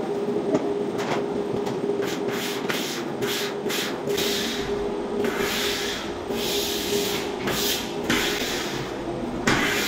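Soapy water sprayed from a pump sprayer onto window glass, then hands wiping the wet glass: a run of short, irregular hissing and rubbing sounds over a steady hum.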